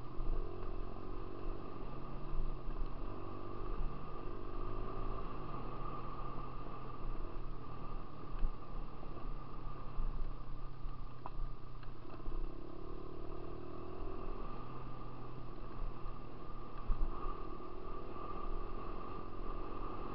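Dirt bike engine running under way on a trail, its pitch rising and falling in steps as the throttle and gears change, with an occasional knock.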